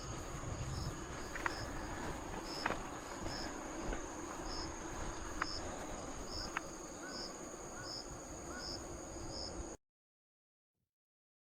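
Autumn insects singing: one steady high trill, with another insect chirping in an even beat a little faster than once a second. The sound cuts off suddenly near the end.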